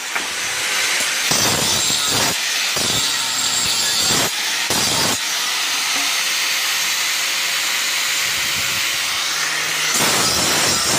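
Hand snips cutting sheet iron in several separate strokes over a steady hiss. About ten seconds in, an angle grinder starts grinding the plate's edge and the noise gets louder.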